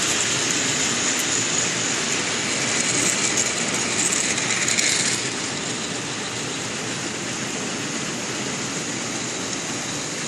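Model railway train, two model steam locomotives hauling freight wagons, running along the layout track with a steady rolling rattle and a high hiss. The high part of the sound drops away about five seconds in, and the running stays steady but quieter after that.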